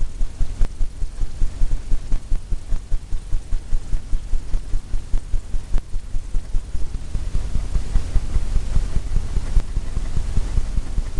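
Paintbrush working oil paint on a stretched canvas: a steady run of low, drum-like thumps, about four a second, as the taut canvas resonates under each stroke.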